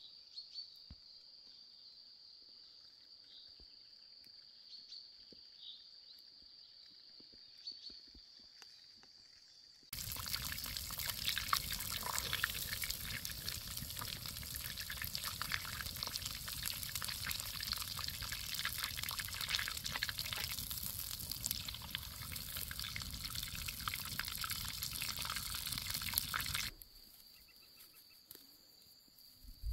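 Open wood fire crackling and hissing, with a pan of liquid bubbling on the coals, dense and loud from about ten seconds in until it cuts off near the end. Before and after it, a steady high insect drone with faint ticks.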